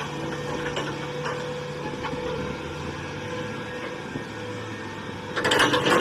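Large crawler crane working a clamshell grab bucket, its diesel engine running steadily with a constant drone. Near the end a louder sound with shifting pitch cuts in.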